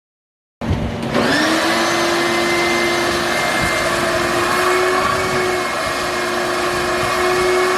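Electric angle grinder spinning up with a rising whine, then running at a steady high pitch while cutting steel, and cutting off suddenly near the end.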